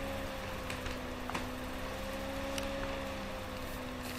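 Room tone: a steady low hum and hiss with a faint, slowly wavering tone and a few faint clicks.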